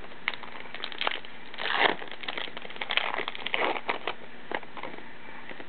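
Foil wrapper of a trading-card pack being torn open and crinkled by hand: a run of crackles and rustles, loudest about two seconds in, dying away shortly before the end.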